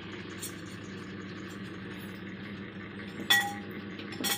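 Crockery clinking as a plate of food is dished up: one sharp, ringing clink about three seconds in, then a few quicker clinks near the end, over a low steady background hum.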